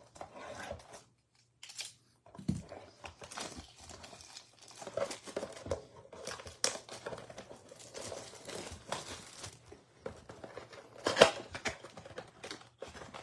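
Plastic wrapping crinkling as it is peeled off a Panini Prizm trading-card box, then the cardboard box being torn open, with one loud rip about eleven seconds in.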